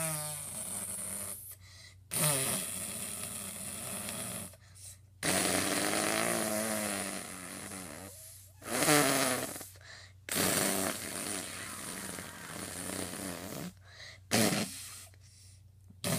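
A person making drawn-out straining grunts and fart-like noises with their mouth, voicing a toy doll on the potty; about five long noises with short pauses between them.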